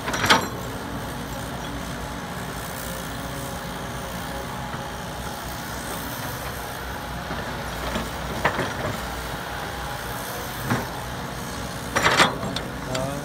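Caterpillar hydraulic excavator's diesel engine running steadily as it digs and loads soil, with a few sharp knocks from the bucket and arm, the loudest near the end.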